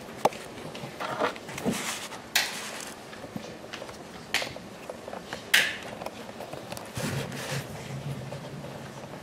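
Small handling noises as musicians set up: a few sharp clicks and knocks, the sharpest a little past halfway, with soft rustling of sheet music between them.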